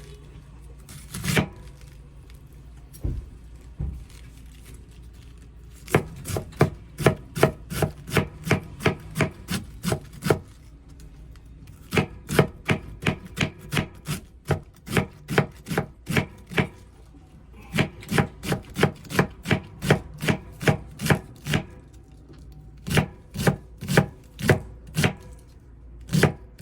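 Kitchen knife finely shredding cabbage on a cutting board: quick, regular chops about three a second, in runs of several seconds with short pauses between.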